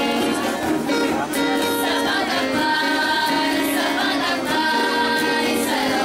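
A group of young voices singing together to strummed acoustic guitars, a steady song with held notes.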